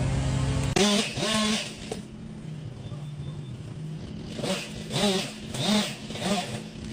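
Engine machinery running loud and steady, then cutting off abruptly about a second in. After that a fainter engine revs up and down in short pulses.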